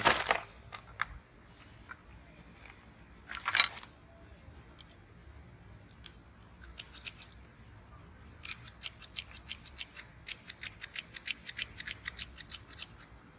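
Draper bypass secateurs being opened and snapped shut over and over, a fast run of sharp metallic clicks about five a second in the last few seconds. Before that there is a rustle at the start and a sharp crackle about three and a half seconds in.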